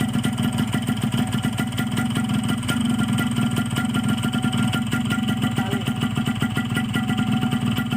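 Yamaha RX-King single-cylinder two-stroke engine, freshly rebuilt on a Thai YP2 block, idling steadily at a very slow, even idle.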